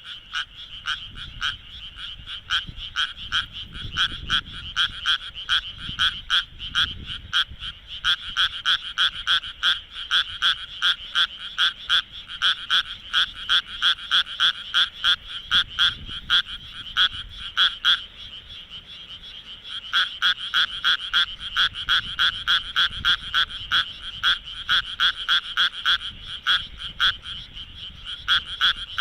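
Japanese tree frog (Nihon-amagaeru) calling with its vocal sac: a fast run of evenly spaced, rasping croaks, several a second, with a break of about two seconds past the middle.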